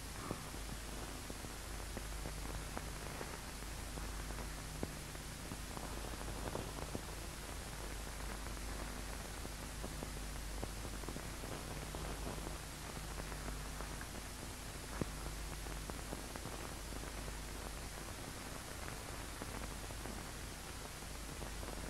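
Steady hiss with a low hum and a few faint clicks: the background noise of an old film soundtrack.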